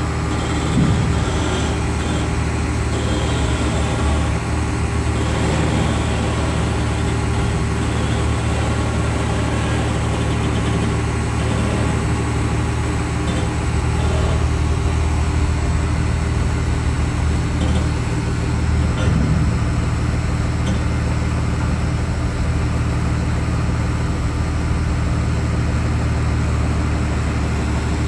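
Heavy engine of site machinery running steadily at constant speed, a low even hum without revving.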